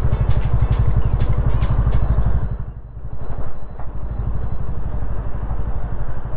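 Yamaha FZ25 motorcycle's single-cylinder engine running under way, with a steady low pulsing and light rapid clicks over it in the first couple of seconds. About two and a half seconds in the engine sound dips briefly, then picks up again.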